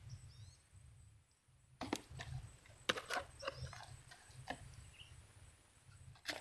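Scattered sharp clicks and short rustles, most of them bunched in the middle, over a low steady rumble, with a few faint high chirps.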